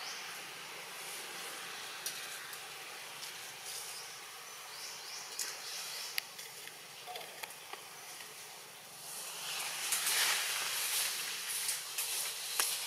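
Outdoor ambience among trees: a steady background hiss with a few scattered clicks, turning into a louder crackling hiss about nine seconds in.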